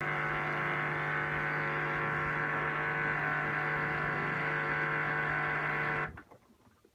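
LG F1495KDS direct-drive washing machine buzzing loudly during the wash cycle, a steady pitched buzz that cuts off suddenly about six seconds in. The noise is said to come from a faulty recirculation pump.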